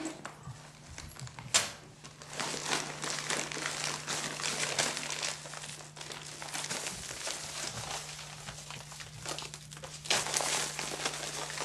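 Paper or plastic wrapping being crinkled and handled, an irregular crackling that goes on for several seconds, with one sharp click about a second and a half in and a steady low hum underneath.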